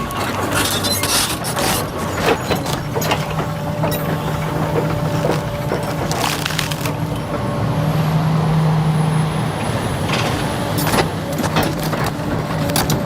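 A machine's engine running steadily while wood cracks and splinters under it in repeated sharp snaps; the engine's pitch rises briefly about eight seconds in.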